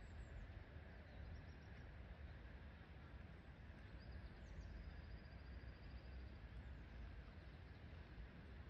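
Faint bird chirps over a steady low background rumble, with a rapid high trill from about four seconds in.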